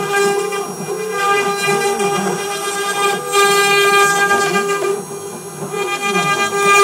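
CNC router spindle whining at a steady pitch as its V-bit cuts into wood, over the noise of the cut. A lower whine slides up and down in pitch as the axis motors move the head. The sound drops for a moment about five seconds in, then picks up again.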